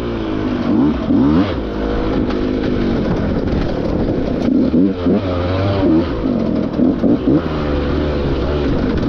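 Dirt bike engine heard from the rider's helmet camera, revving up and down in repeated throttle bursts, its pitch rising and falling every second or so.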